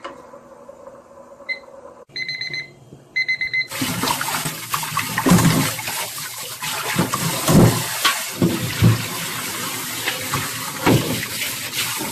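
A kitchen timer beeps once, then beeps in two quick runs, timing the noodles' 25-second boil. Then a tap runs hard into a stainless-steel colander in the sink while hands rub the cooked naengmyeon noodles under the water to wash off their starch.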